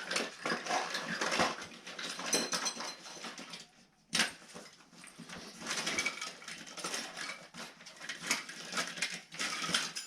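Small metal tools clinking and rattling in quick, irregular clicks, as in handling or rummaging through screwdrivers, with a short lull about four seconds in.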